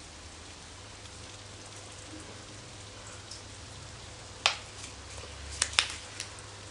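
Steady hiss of rain with a faint low hum underneath. A few sharp clicks or crackles come between about four and a half and six seconds in.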